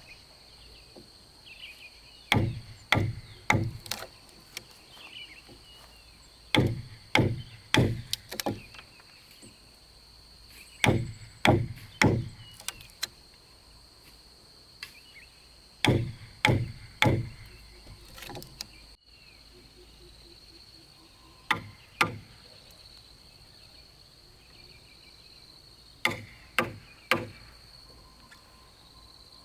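Hand tool blows striking wood, in quick groups of three or four sharp knocks with pauses between, as in chopping or hammering timber. A steady high insect drone runs underneath.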